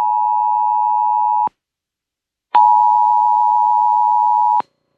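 Emergency Alert System two-tone attention signal, a steady dual tone sounding twice. Each blast lasts about two seconds with a gap of about a second between them. It marks the start of a new alert.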